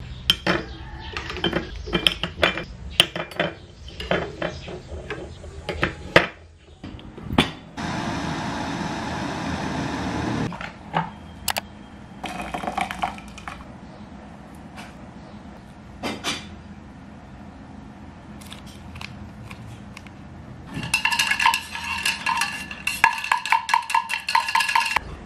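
Kitchen clatter of a spoon and dishes clinking, with a steady hiss for about three seconds in the middle. Near the end a metal spoon is stirred quickly in a stainless steel tumbler, in a fast run of ringing metallic clinks.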